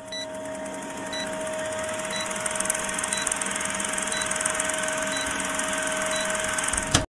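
Old film projector sound effect: a steady whirring rattle with a hum, fading in over the first couple of seconds, with a short faint beep once a second. It ends in a click and cuts off suddenly.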